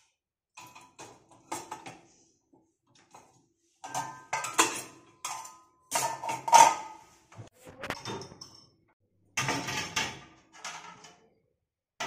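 Steel pots, lids and utensils clattering and clanking against each other and a dishwasher's wire racks as they are loaded, in several separate bursts with short metallic ringing. The loudest clank comes about six and a half seconds in.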